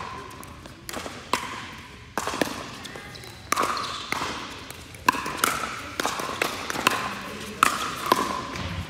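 Pickleball rally: the hollow plastic ball pocking off paddles and bouncing on the court in a quick, irregular run of sharp hits. Each hit rings briefly in the large hall.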